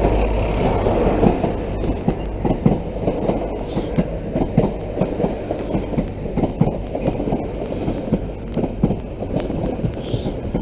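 Passenger train moving through the station: a low steady rumble with irregular clicks and clacks of the wheels running over rail joints and points.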